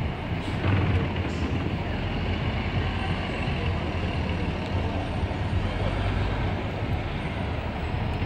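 City transit bus engine running as the bus turns through the intersection and pulls away, a steady low hum over street traffic.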